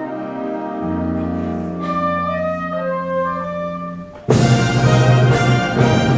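Concert wind band of woodwinds, brass and percussion playing softer held chords. About four seconds in, the full band comes in suddenly and loud.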